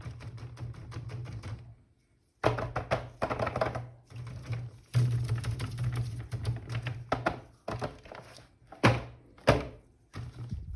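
Plastic toy packaging and figures being handled: rapid clicking and tapping, with a brief cut to silence about two seconds in and two sharp knocks near the end.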